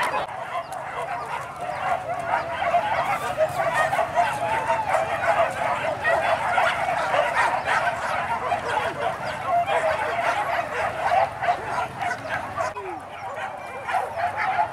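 A pack of leashed hunting dogs barking, yelping and yowling together in a dense, unbroken chorus.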